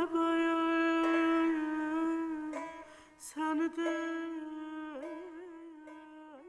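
Azerbaijani mugham music: a long held note broken by quick ornamental turns. It grows steadily quieter over the last few seconds as it fades out.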